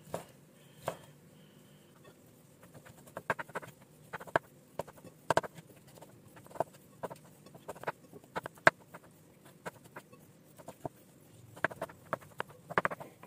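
Kitchen knife cutting boiled chicken liver on a wooden cutting board: irregular sharp taps as the blade hits the board.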